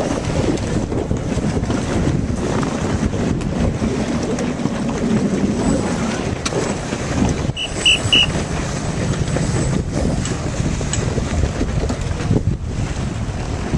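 Wind buffeting the microphone over choppy water, a steady low rumble. About eight seconds in, three short high beeps sound in quick succession.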